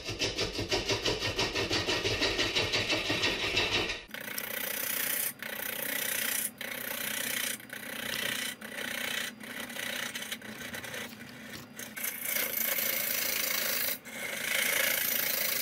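Turning tool roughing out an out-of-balance wooden bowl blank on a Powermatic wood lathe. For the first four seconds there is a fast rhythmic knocking, about four to five a second, of an interrupted cut on the lopsided spinning blank. Then comes a steady hissing scrape of the tool shaving wood, broken by brief pauses about once a second as the tool comes off between passes.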